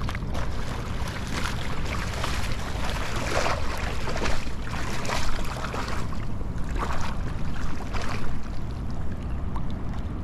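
Wind rumbling on the microphone over river water, with irregular splashes and rushes of water.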